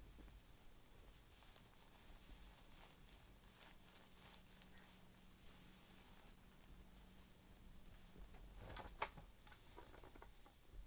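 Near silence with faint, short, high-pitched bird chirps repeating every second or so, and a soft knock about nine seconds in.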